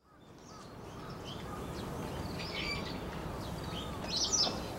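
Outdoor ambience fading in: small birds chirping over a steady low background noise, with a louder flurry of chirps about four seconds in.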